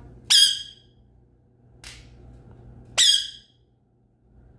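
Indian ringneck parakeet giving two short, loud squawks about three seconds apart, each dropping slightly in pitch as it fades.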